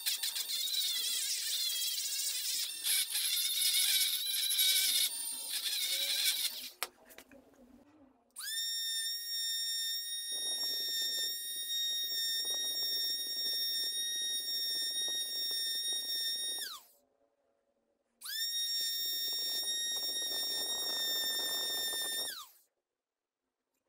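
Handheld rotary tools working a steel chisel blade. First comes a rough, uneven abrading for several seconds. Then a rotary tool fitted with a silicon carbide grinding stone runs twice with a steady high whine, grinding against the chisel's steel edge. Each run ends with the motor switched off and its whine falling away as it spins down.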